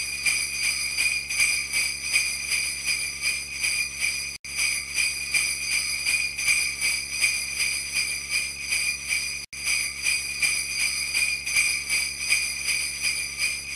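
Jingle bells shaken in a steady, even rhythm, a looped Christmas sound effect that drops out for an instant twice.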